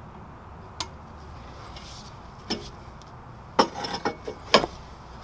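Metal fuel filler pipe knocking and clinking against the car as it is worked up into the wheel well: a few sharp, separate metallic taps, bunched together about three and a half seconds in.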